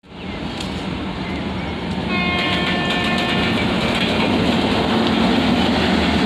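WAP-7 electric locomotive and its express train running through the station at speed without stopping, a steady rumble of wheels on rails growing louder as it comes alongside. About two seconds in, the locomotive sounds one horn blast lasting about a second and a half.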